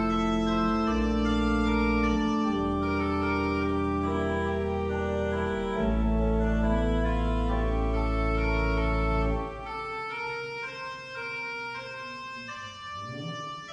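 Organ playing slow, sustained chords over deep pedal bass notes. About nine seconds in the bass drops out and the playing goes on more softly.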